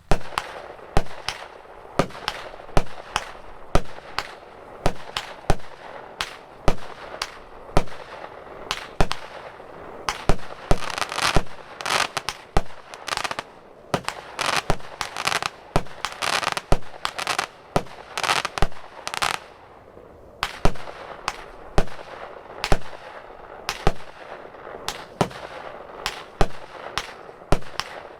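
A 100-shot, 0.8-inch consumer fireworks cake (battery) firing in sequence at about two shots a second, each a sharp bang. Through the middle the shots are filled in with dense crackling.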